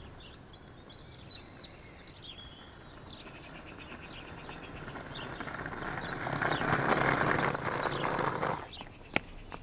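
Skateboard wheels rolling over brick paving, growing louder as the board approaches and cutting off abruptly near the end, followed by a single sharp click. Birds chirp throughout.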